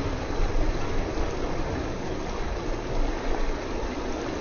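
Shallow stream rushing over rocks in a riffle: a steady rush of water with a low rumble underneath.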